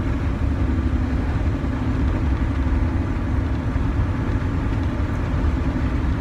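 Steady low rumble of a vehicle's engine and road noise, heard from inside the cabin while driving.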